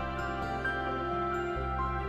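Soft background music with held low notes and light, single high notes changing every half second or so.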